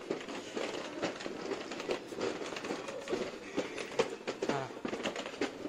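Busy street ambience: a crowd's scattered voices mixed with frequent clicks, knocks and clattering.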